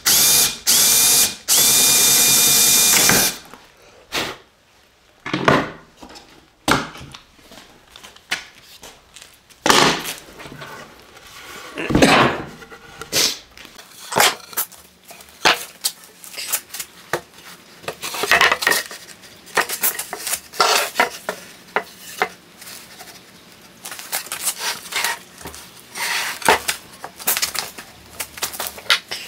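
A cordless drill with a Forstner bit runs steadily, boring down through a wooden board from the second side to finish the hole, and stops about three seconds in. After that come scattered knocks and clatter as the board is handled on the workbench.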